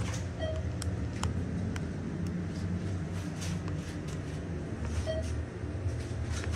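ThyssenKrupp hydraulic elevator car in travel, heard inside the cab: a steady low rumble and hum, with a few faint clicks.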